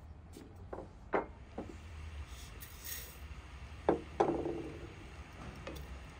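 Crockery handled on a wooden table: a few light knocks, then a louder pair about four seconds in, the second ringing briefly like a china saucer.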